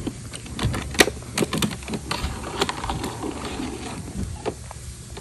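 Light plastic clicks and clatter of a toy car and plastic playset parts being handled and moved, with irregular taps, the sharpest about a second in.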